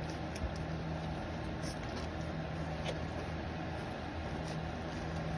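Newborn puppies shuffling with a few faint, brief squeaks over a steady low hum.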